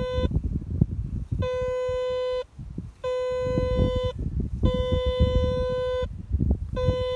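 Deeptech Vista Smart+ Pro metal detector in pinpoint mode, sounding a steady mid-pitched tone in about five separate stretches of a second or so with short gaps, as the coil passes back and forth over the target. The signal comes from a shallow piece of rusty iron pipe.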